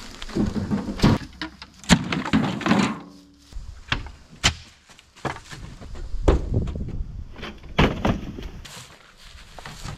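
Junk being hauled out of an old shed and dropped: irregular thumps, knocks and clatters of old rusty metal tubs, pots and boxes, some with a brief ringing after the hit.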